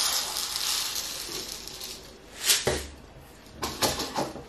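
Instant iced tea granules pouring from a jar through a plastic funnel into a glass fermenter: a rushing hiss that tails off over the first second or so. Then a sharp knock about halfway through and a few clicks and thumps near the end as the funnel is handled.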